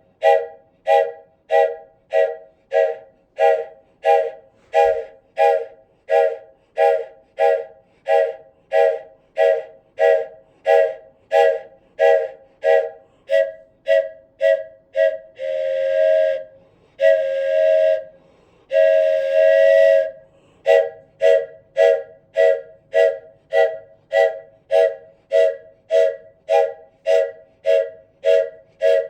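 Wooden train whistle blown in quick rhythmic puffs, about two a second, each puff a chord of several notes sounding together. A little past halfway it changes to three longer held blasts, then the quick puffs resume.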